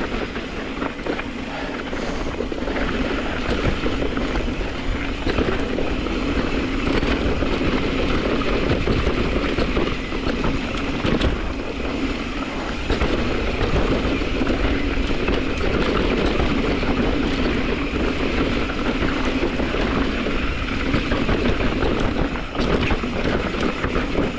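Full-suspension mountain bike (2021 Ibis Mojo HD5) descending a rocky dirt trail: steady tyre noise over dirt and stones, with many small knocks and rattles from the bike over the rough ground.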